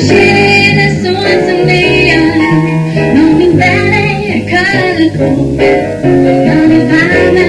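A woman singing a song over instrumental accompaniment, with a plucked bass line stepping from note to note underneath.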